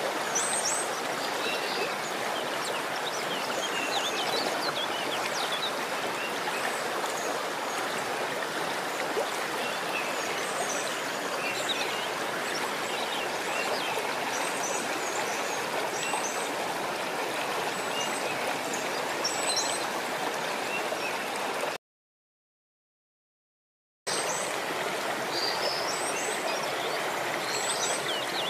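Steady rush of running water, like a stream, with short high chirps scattered over it. The sound cuts out completely for about two seconds near the end.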